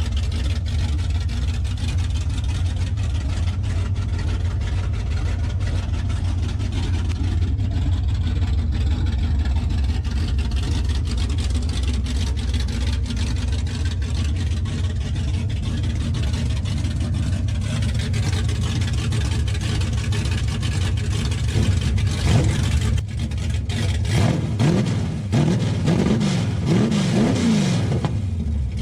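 Dodge 383 big-block V8 with a small Lunati cam, running with its exhaust unhooked: it idles steadily, then is revved up and down several times over the last several seconds.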